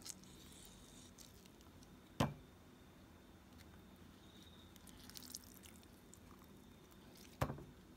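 Two short sharp knocks, about two seconds in and again near the end, over a quiet kitchen with a few faint small clicks between them.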